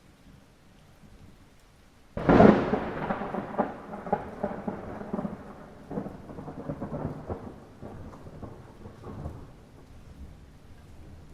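Light rain hissing steadily, then about two seconds in a sudden loud thunderclap that rolls on as rumbling for several seconds and slowly fades.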